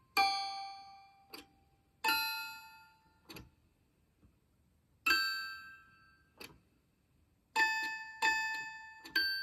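A tiny toy piano played slowly, one note at a time: six single notes of varying pitch, each ringing out and dying away, with a light click after most of them. The last three notes come closer together near the end.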